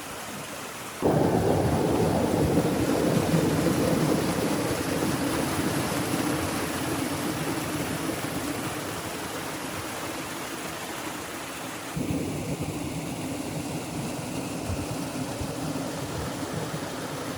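Rushing water with a low rumble, starting abruptly about a second in and slowly easing, then surging up again suddenly about two thirds of the way through.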